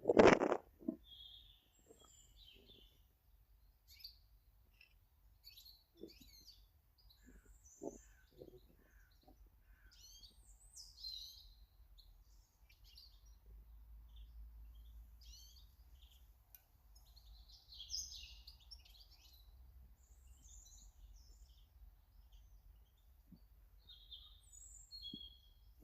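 Small garden birds chirping and calling in short scattered notes. A loud knock comes right at the start, and a few soft knocks follow a few seconds later.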